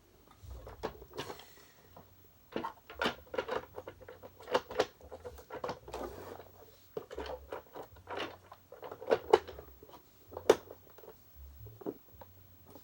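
Irregular sharp clicks and knocks of hard plastic vacuum parts being handled and fitted together as the motor goes back into the Hoover U6436-900 upright's housing, the two loudest in the latter half.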